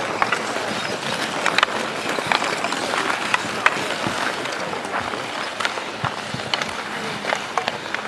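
Ice skates scraping across outdoor pond ice and hockey sticks clacking against the ice and puck: a steady scraping hiss broken by many sharp, irregular clicks.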